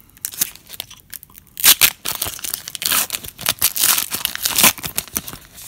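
A foil trading-card pack wrapper being torn open and crinkled by hand, in irregular crackling bursts that are loudest about a second and a half in and again in the second half.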